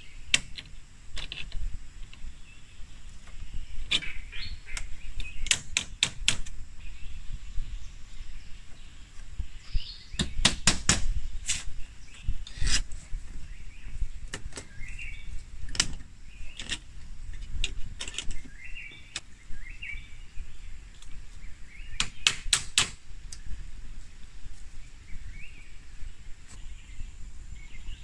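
Sharp strikes of a tool on bamboo, some single and some in quick runs of four or five, with small birds chirping between them.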